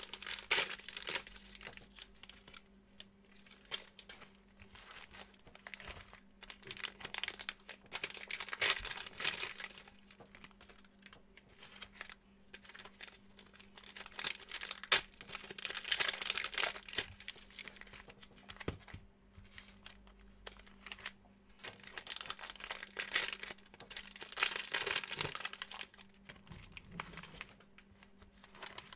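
Plastic wrappers of trading-card packs being torn open and crinkled, in several bouts of rustling a few seconds long with light clicks, every six to eight seconds.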